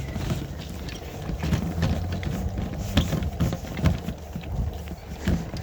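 Footsteps of a person walking, about two steps a second, over a steady low rumble.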